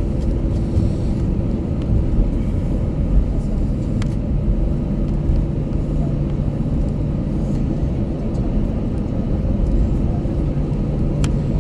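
Steady cabin rumble inside an Airbus A321-200, the jet's engines and airflow heard from a window seat, with a low hum that drops in pitch about four seconds in.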